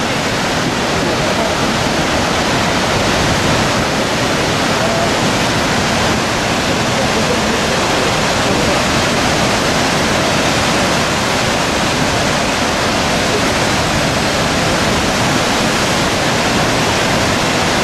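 Kjosfossen waterfall, a large volume of white water falling down a rock face: a loud, steady rush.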